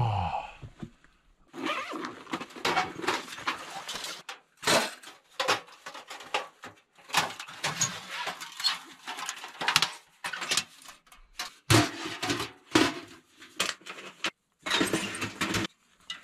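Irregular rustling, scraping and light clattering of gear being handled, with metal clinks as a small sheet-metal wood stove is set up and a fire is lit in it.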